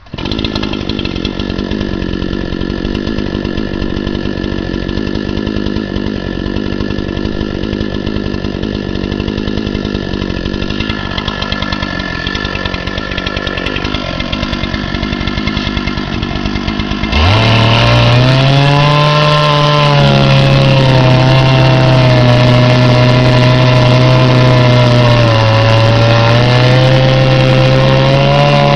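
Chainsaw on a chainsaw mill running while ripping a board from a log. It gets abruptly louder about two-thirds of the way in, and from then on its pitch wavers and dips as the chain works through the wood.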